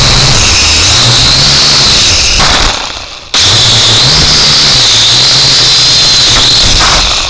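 Small quadcopter drone's motors and propellers whining loudly, the pitch wavering as the throttle changes. The whine dies away about two and a half seconds in, cuts back in abruptly about a second later, then dies away again near the end.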